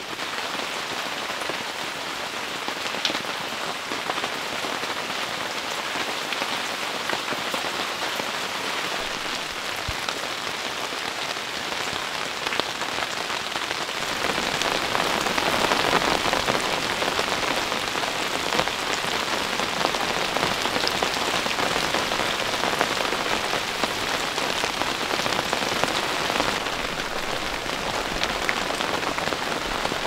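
Steady heavy rain pattering on a tent, with scattered individual drops; it becomes louder and fuller about halfway through.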